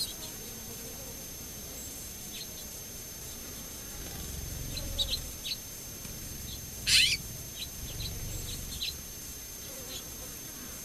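Small birds giving scattered short, high chirps, with one louder call about seven seconds in that slides steeply downward.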